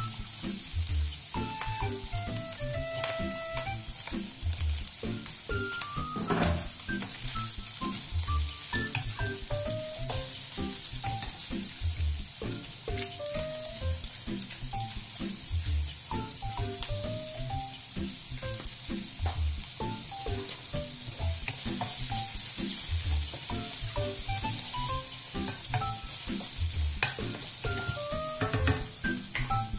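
Bacon, garlic and beech mushrooms sizzling in oil in a non-stick wok, stirred with a wooden spatula that scrapes and taps the pan. Light background music with a steady beat runs underneath.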